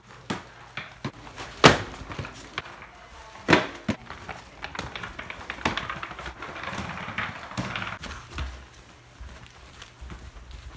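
Inline skates knocking and clattering on a hard floor, with two loud knocks about two seconds apart. Then the skate wheels roll across a wooden floor for a few seconds and go quiet on carpet near the end.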